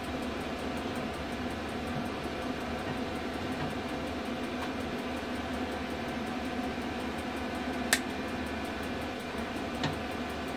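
A 220 V DC electric motor driving a treadle fret saw's top arm through a motorcycle drive chain, running with a steady, even hum. A sharp click about eight seconds in and a fainter one near the end.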